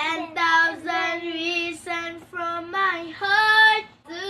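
A young girl singing unaccompanied, in short phrases of held notes with brief breaks between them.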